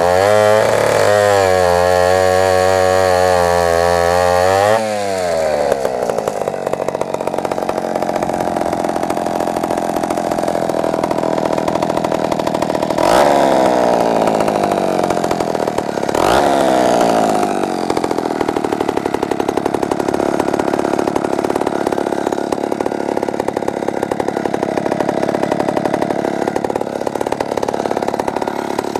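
Poulan Model 86 sandcast two-stroke chainsaw running at low revs, then revving up about five seconds in and holding high revs. Its pitch dips briefly and comes back twice, at about 13 and 16 seconds.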